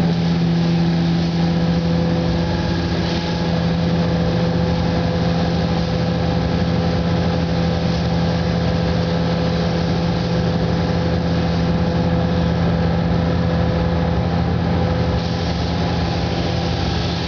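Paint booth machinery running steadily: a constant low hum with a few fixed tones and an even hiss above it, while a car is being sprayed with paint.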